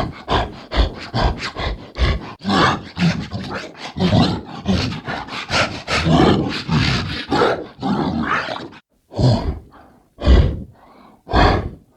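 Designed werewolf creature vocalizations, guttural and feral: a fast run of short growling, snarling bursts for about nine seconds, then three separate louder bursts with short gaps between.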